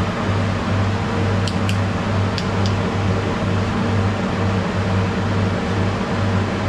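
TIG welder arc on an aluminium cylinder head: a steady electrical buzz whose low hum pulses about one and a half times a second, with a few faint ticks about two seconds in.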